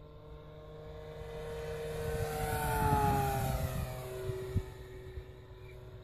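Electric RC model airplane, a PC-9 powered by a brushless outrunner motor turning a three-blade 16x10 propeller, making a pass: the motor and propeller whine grows louder to a peak about halfway through, drops in pitch as it goes by, then fades. A steady low rumble runs underneath.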